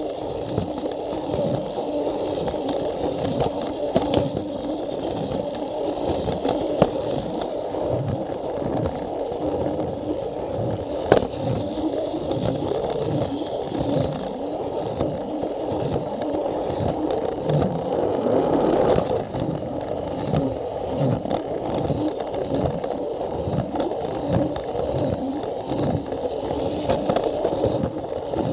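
Plarail toy train running along its plastic track: the small battery motor and gearbox run steadily while the wheels knock regularly over the rail joints, with a few sharper clicks.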